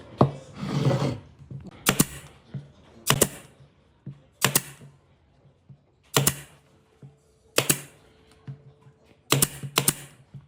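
A series of sharp knocks, about one every second and a half, some in quick pairs, with a short scraping rustle about half a second in.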